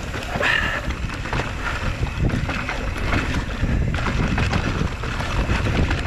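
Wind buffeting the microphone of a mountain biker's action camera while riding a hardtail mountain bike over rough dirt trail. Many sharp clicks and rattles come from the bike over the bumps, with a short high squeak about half a second in.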